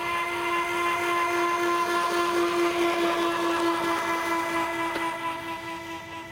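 Twin electric ducted fans of a foam A-10 Thunderbolt RC jet, driven by brushed motors, whining steadily as the plane makes its takeoff roll. The whine is loudest midway and fades near the end as the plane lifts off and moves away.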